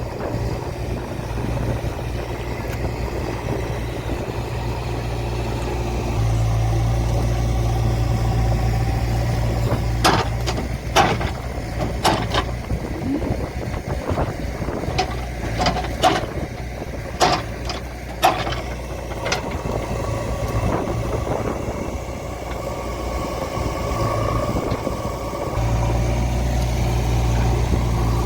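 Diesel engine of a JCB 3DX backhoe loader running steadily, getting louder about six seconds in and again near the end. A series of sharp knocks comes through the middle.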